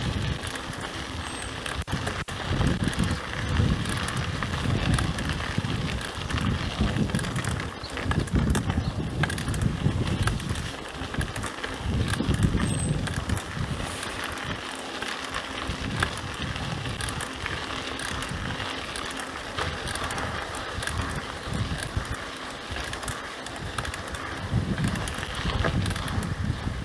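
Mountain bike being ridden over a dirt track: tyres crunching on the loose surface with a constant scatter of small clicks and rattles from the bike, and repeated low rumbles of wind on the microphone.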